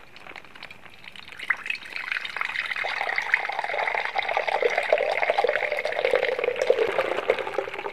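Milk pouring from a plastic bag into a terracotta clay pot: a steady splashing pour that grows louder about two seconds in.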